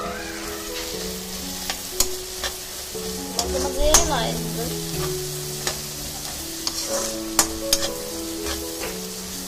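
Metal spatula scraping and knocking against a metal kadai while sliced onions sizzle in hot oil, with sharp clinks scattered through and the loudest about four seconds in. Soft background music with held notes plays underneath.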